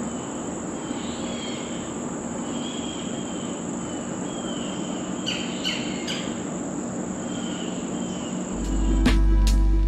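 Woodland insects droning steadily on one high pitch while small birds chirp, with a few sharp chips about halfway through. Near the end, background music with a deep bass and drum hits comes in.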